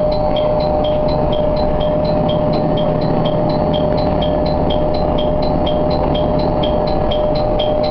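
Diesel railcar running along the track, a steady rumble with a constant mid-pitched whine. Over it a high, even two-tone ding repeats about three times a second, alternating between two pitches.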